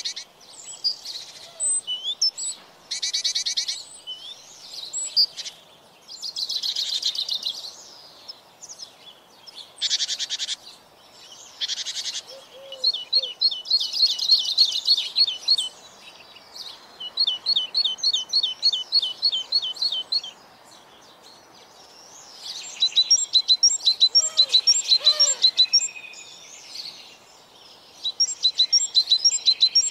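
Several songbirds singing: a string of high song phrases a few seconds apart, many of them quick runs of repeated notes, with two birds overlapping about 24 seconds in.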